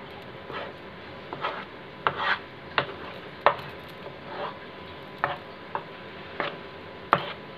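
A wooden spatula stirs a thick, gluey arrowroot-and-cornflour paste in a steel pan, scraping and knocking against the metal in a dozen or so irregular strokes. The paste has thickened and turned translucent while it cooks on the gas flame, the stage at which the falooda sev batter is nearly done.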